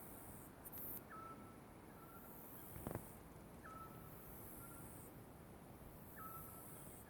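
Faint repeated call of an unidentified night animal: a short note that drops slightly in pitch into a brief held whistle, then a softer short note, repeating about every two and a half seconds. A high hiss comes and goes behind it, and a sharp click sounds about three seconds in.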